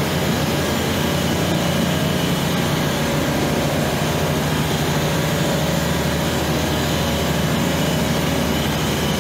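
Steady low machinery drone of a refrigeration compressor room, with the continuous hiss of an oxy-fuel torch flame brazing a pinhole leak in a copper discharge line.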